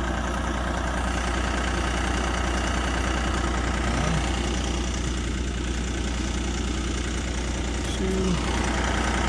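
Vermeer SC48TX stump grinder's engine idling steadily after grinding was stopped for buried brick.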